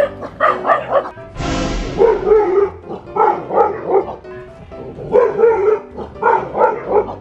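Dogs barking in quick runs of barks, roughly one run a second, over background music. A short burst of noise about a second and a half in.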